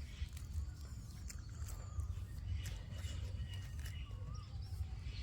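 Birds calling faintly in thin, wavering chirps and whistles over a steady low rumble, with scattered short clicks and taps.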